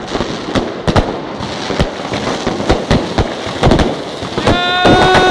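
Fireworks and firecrackers going off overhead in a dense, irregular string of sharp bangs, several a second. A steady pitched tone comes in near the end.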